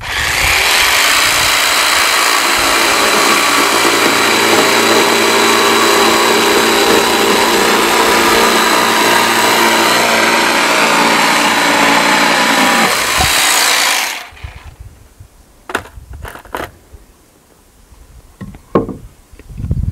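Cordless power saw cutting through a Douglas fir deck board, running steadily for about fourteen seconds and then stopping. A few short wooden knocks follow as the cut-off piece is handled.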